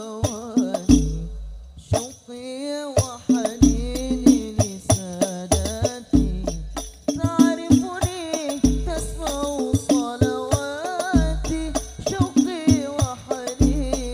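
A male lead voice sings an Arabic devotional song (sholawat) in a winding, ornamented line, accompanied by banjari frame drums. The drums play a steady interlocking rhythm of sharp slaps, with a deep bass stroke about every two and a half seconds.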